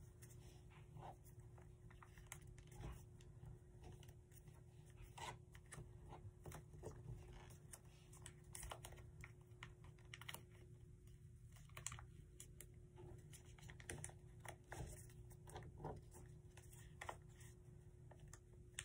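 Origami paper being folded and creased by hand: faint, irregular crinkles and small taps, over a low steady hum.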